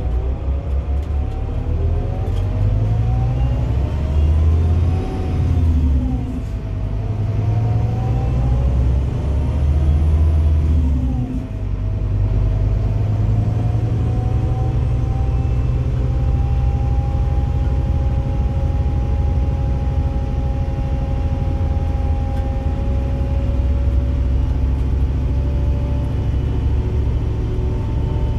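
Scania DC9 five-cylinder diesel engine of a Scania Citywide LE bus, heard from inside the passenger cabin. The bus accelerates with the engine pitch rising, then dropping at Opticruise gearbox upshifts about six and eleven seconds in, and it then runs at a steady pitch at cruising speed.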